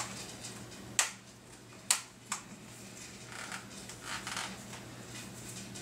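Plastic case of a Logitech K830 keyboard being handled and pried at by hand to separate its halves: three sharp clicks within the first two and a half seconds, then soft scraping rubs.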